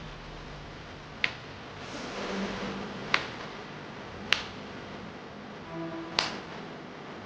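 Four sharp clicks, a second or two apart, over a low steady hiss: small parts of a laptop being handled and snapped.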